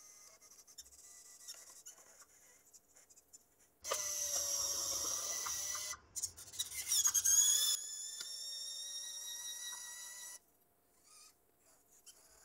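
Hobby servos in a large 3D-printed RC excavator whining as they work the arm and bucket, with scraping as the bucket digs into sand. After a faint start the sound comes in loud about four seconds in. The whine then rises in pitch, holds steady for a few seconds and stops.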